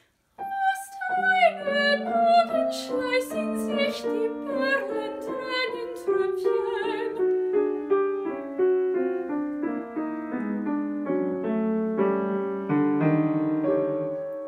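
Solo piano interlude in an art song for soprano and piano. After a brief pause the piano plays a string of quick notes, with high notes stepping downward over the first few seconds, then fuller, lower chords, and a deeper bass note comes in near the end.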